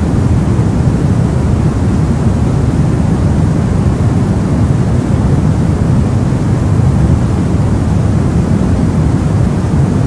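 Continuous white-noise track for soothing a baby: a loud, steady, unchanging hush with most of its weight in the low end, deep rather than bright.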